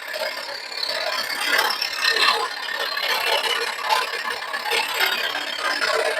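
Charnwood SS16F scroll saw running with a continuous mechanical rattle that has an uneven texture.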